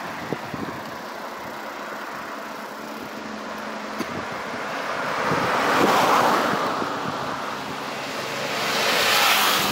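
Road traffic on an avenue: a steady rush of tyre and engine noise. It swells and fades as vehicles pass, loudest about six seconds in and again near the end, as a van and then a motorcycle go by.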